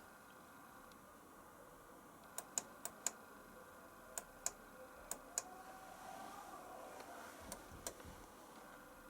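Sharp plastic clicks from the control panel of a Zanussi ZWF14380 washing machine being worked. There are about ten clicks, mostly in close pairs, starting a couple of seconds in.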